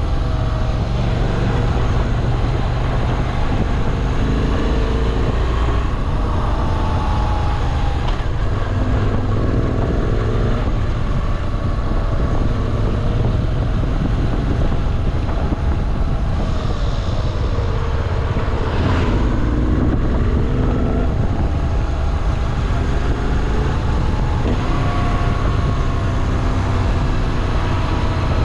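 Moto Guzzi V7 Classic's air-cooled transverse V-twin running under way, its pitch rising and falling as the rider works the throttle and gears, with steady wind rush over the microphone.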